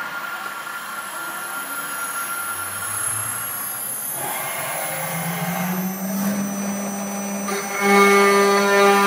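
CNC router spindle running, its motor tone rising in pitch over a few seconds as it spins up; near the end it gets louder with a steady, multi-toned whine as the spindle comes down onto the aluminium board.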